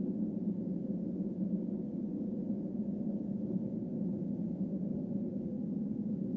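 A steady low drone with a faint held higher tone over it, unbroken and even in loudness.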